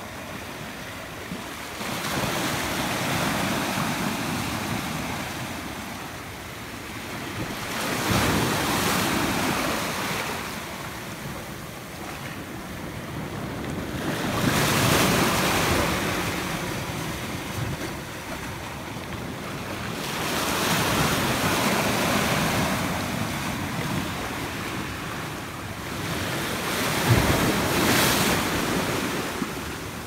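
Atlantic surf breaking on the shore: a rush of waves that swells and falls away about every six seconds, five times over.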